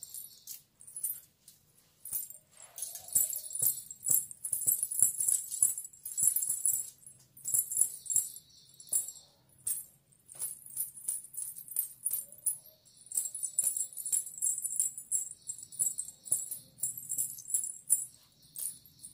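Small silver ghungroo bells on a pair of anklets (payal) and bridal toe rings jingling as the feet shift and tap. The jingling comes in repeated bursts, with a pause of about three seconds midway.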